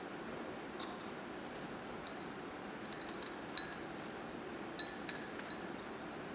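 Small pieces of tableware clinking together as they are handled: a few light, ringing clinks, with a quick run of them near the middle, over a steady background hiss.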